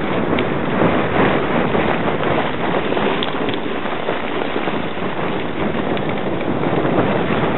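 Sledge sliding fast down a packed-snow run: a steady, dense scraping hiss of the runners on snow, mixed with wind rushing over the microphone.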